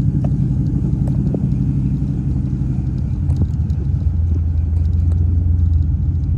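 A motor vehicle running: a loud, steady low engine and road rumble, its lowest tone growing stronger about four seconds in.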